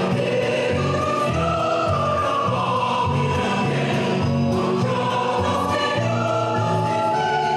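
Mixed chamber choir singing sustained chords in several parts, amplified through microphones and an active speaker system. A high note is held steady near the end.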